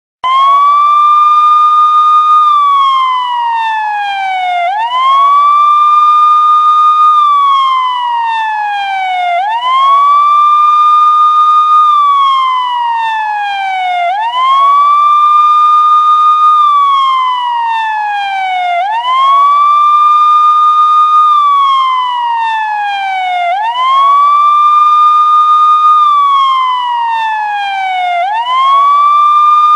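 Ambulance siren wailing. Each cycle rises quickly, holds high for about two seconds, then slides slowly back down, repeating about every four to five seconds, six times over.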